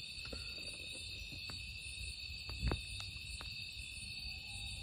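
Steady chorus of crickets at night, a continuous high-pitched chirring. A few faint clicks and one louder, low knock about halfway through.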